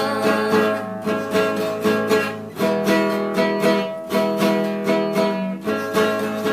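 Acoustic guitar strummed alone in a steady sertanejo rhythm, about two strokes a second, playing an instrumental break between sung lines.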